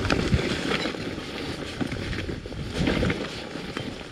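Fully loaded touring bicycle rattling and bumping over a rough single trail, with irregular knocks and a low rumble, and wind on the microphone.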